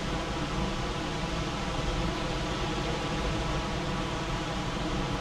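Heavy rain falling steadily, an even hiss with no let-up. A faint steady hum runs underneath.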